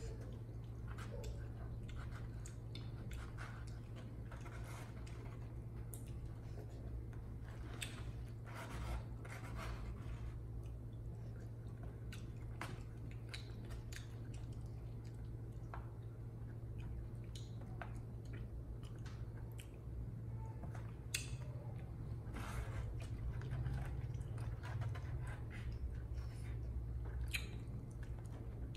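Close-up eating sounds: chewing of noodles, with scattered sharp clicks of chopsticks against a bowl, over a steady low hum.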